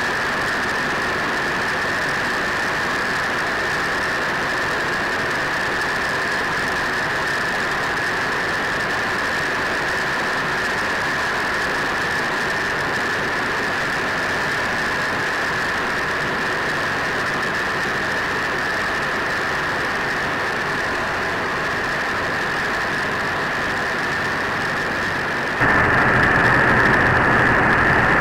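The B-25 Mitchell's two Wright R-2600 Twin Cyclone radial engines droning steadily, heard inside the bomber's nose compartment. Near the end the drone abruptly gets louder and fuller.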